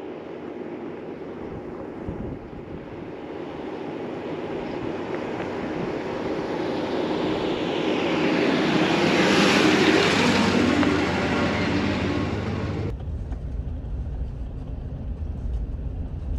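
A vehicle passing on a road: tyre and engine noise swells to a peak about ten seconds in and then fades. About three seconds before the end it cuts off suddenly, giving way to a steady low rumble.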